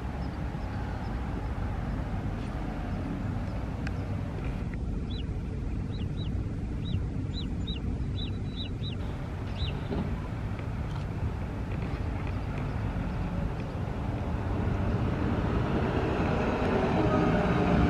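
City bus traffic: a steady low engine rumble, with a bus passing close and getting louder over the last few seconds. A small bird chirps about ten short calls in quick succession a few seconds in.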